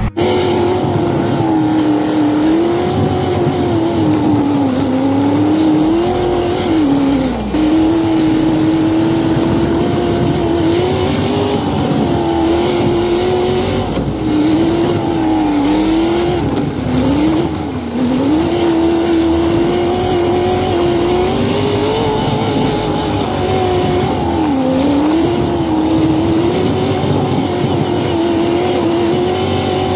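Engine of an off-road vehicle heard from inside the cab while driving a dirt trail. Its note holds steady, then dips and climbs back several times as the throttle is let off and reapplied.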